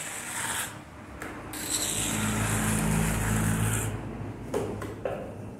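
A small trowel scraping and rubbing wet cement mortar against a sand mould and the cement-covered turntable, louder for about two seconds in the middle.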